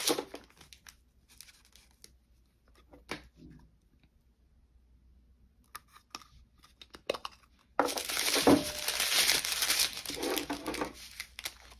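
Faint clicks and taps of a small plastic drill storage pot being handled, then, about eight seconds in, loud crinkling of plastic zip-lock bags of diamond-painting drills being picked up and handled.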